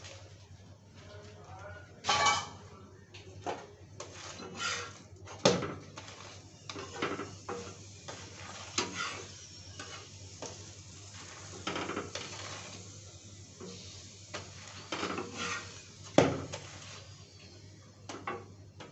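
Steel spatula scraping and clinking on an iron tawa as a paratha is flipped and pressed down while it fries, in irregular strokes, the sharpest about five seconds and sixteen seconds in.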